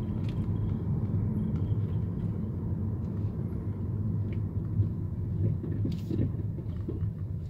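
Mercedes-Benz E350 (W212) driving on a rough road, heard from inside the car: a steady low road rumble with scattered knocks and rattles from the driver's-side front suspension. The mechanic likens the clunking to something come loose or a worn ball joint; the cause was a loosened nut.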